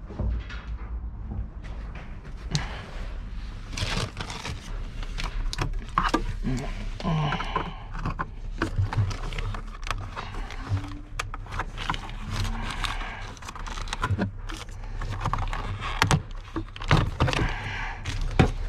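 Music playing over a run of sharp clicks and knocks from interior trim being pried loose and handled, with a steady low rumble underneath.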